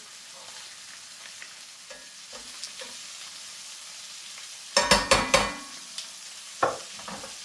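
Pieces of crappie fillet frying in a skillet, a steady sizzle. Metal tongs clatter against the pan in a quick run of knocks about five seconds in, then tap it twice more near the end as the pieces are turned.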